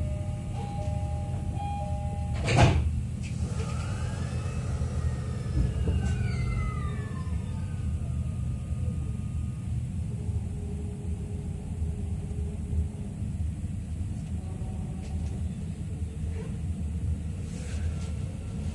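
Inside an E231-series electric train car: a short two-tone door chime, then the doors knock shut about two and a half seconds in. The train pulls away, its inverter-driven traction motors giving a whine that rises and then falls in pitch over a steady low running rumble.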